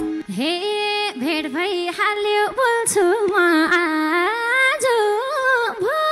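A woman singing a Nepali dohori folk line unaccompanied into a microphone, her voice sliding and bending between notes in short phrases with brief breaks between them.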